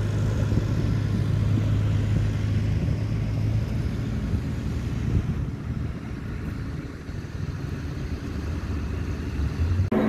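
Diesel engine of heavy construction machinery running at a building site: a steady low hum over a noisy rumble, easing a little about halfway through.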